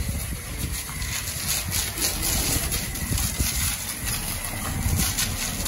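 Self-serve car wash foam brush spraying foam onto a pickup's body and wheel: a steady hiss of spray over a continuous low rumble.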